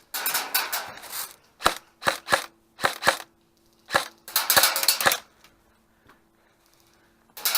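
Airsoft guns firing: a rapid burst of about a second, then several quick single shots, another burst near the middle, and a short burst near the end.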